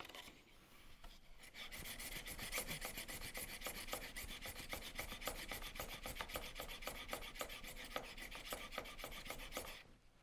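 A hand file rubbing across a circular saw blade's tungsten carbide tooth in quick, even back-and-forth strokes, hand-sharpening the tooth. The filing starts about a second and a half in and stops just before the end.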